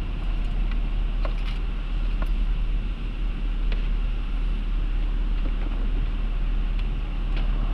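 Vehicle engine idling, heard from inside the cab as a steady low rumble, with a few faint clicks and taps.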